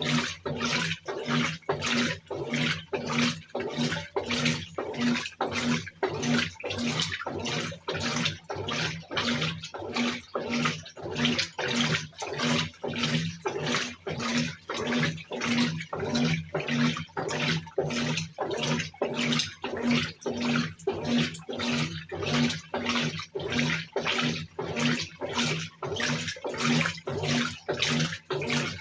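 Brastemp BWK17 top-load washing machine agitating a load in water: water sloshing in an even rhythm of about two strokes a second, each stroke with a pulsing motor hum.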